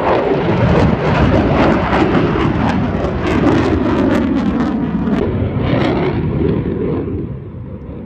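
Fighter jet's engines running loud as it flies overhead: a dense roar with a rapid crackle, easing off somewhat near the end.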